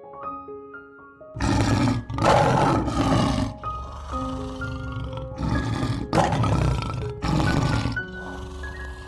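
Lion roaring in about five rough bursts, the first about a second and a half in, over background music of soft held notes.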